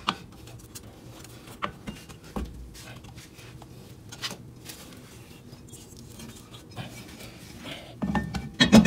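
Scattered light metallic clicks and taps from hands working the drum brake shoes and adjuster. Near the end comes a louder clatter and scrape of metal as the brake drum is fitted back over the shoes onto the hub.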